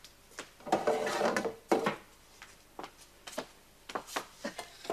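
Kitchen handling noises: a scrape of wood and dishware about a second in and another shortly after, then a scatter of light knocks and clicks.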